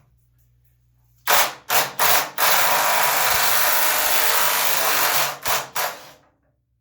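Impact wrench hammering on a water heater's anode rod hex to break it free: several short trigger pulls, a held run of about three seconds, then two more short bursts before it stops.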